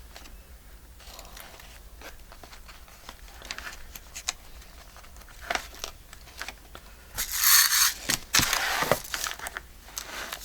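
Small craft items being handled on a tabletop: scattered light clicks and taps, then two louder crinkling, rustling stretches about seven and eight and a half seconds in.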